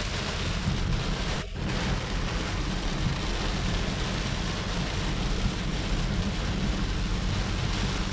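Heavy rain pelting a moving car's roof and windscreen, heard from inside the cabin over a steady low road rumble. The sound drops out for a split second about one and a half seconds in.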